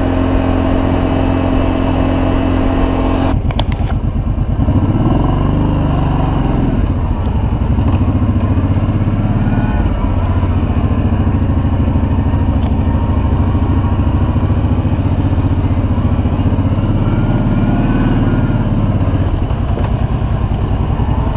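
Kawasaki Brute Force ATV's V-twin engine running under way, its pitch rising and falling a couple of times with the throttle. The sound changes abruptly about three seconds in.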